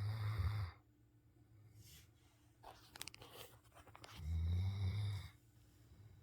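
Snoring: a low snore that ends under a second in, a quieter fluttering breath around the middle, and a second snore of about a second in the latter half.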